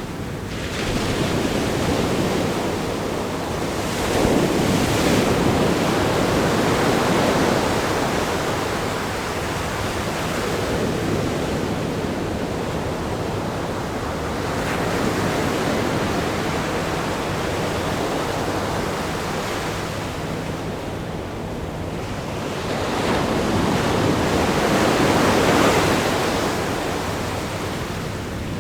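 Ocean surf breaking against a rock groin and washing over a sandy beach: a continuous rushing wash that swells as a larger wave breaks about four seconds in and again near the end.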